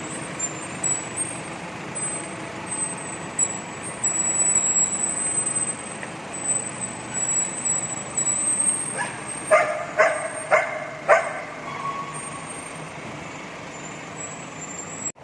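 Steady motor-vehicle rumble, with a dog barking four times in quick succession about nine to eleven seconds in.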